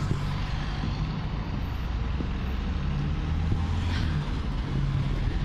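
Wind buffeting a handheld camera's microphone: a steady low rumble with a faint hiss over it.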